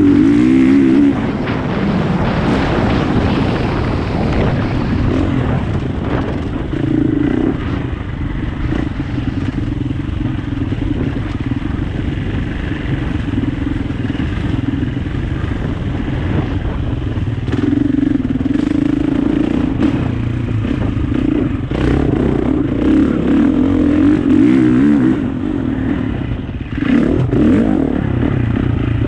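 Enduro dirt bike engine ridden hard off-road, revs rising and falling continuously as the rider works the throttle and gears over rough ground.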